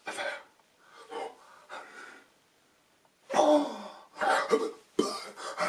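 A man's wordless voice in short bursts of breath and gasps, with a louder falling exclamation about three seconds in after a brief pause.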